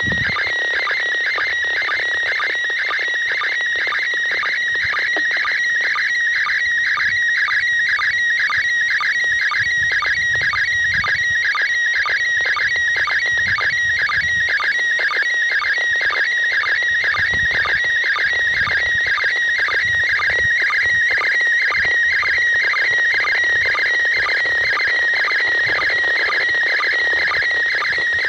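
Slow-scan TV (SSTV) picture signal from the International Space Station, heard through a handheld Ailunce radio's speaker: a high, steady electronic warble broken by a regular beep-like beat about twice a second, over a hiss of static.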